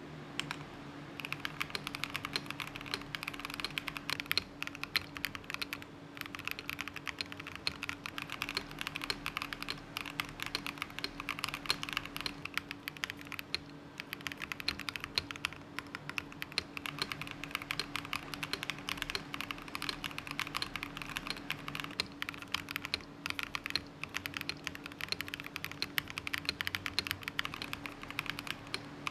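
Continuous typing on a KBDfans Margo mechanical keyboard with Gateron G Pro V2 switches, dye-sub PBT keycaps and a silicone-pad-mounted anodised case. Dense, quick keystroke clacks run on with a few brief pauses.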